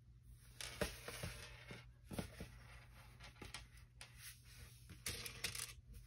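Plastic pony beads and string handled while beads are threaded by hand: scattered light clicks and short scratchy rustles.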